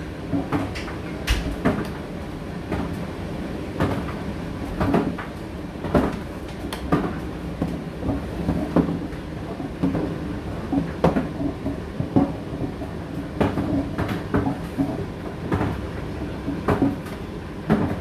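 Indesit IDC8T3 condenser tumble dryer running on high heat: a steady motor and drum hum with knocks about once a second, uneven in spacing and strength, as the load tumbles and drops in the turning drum.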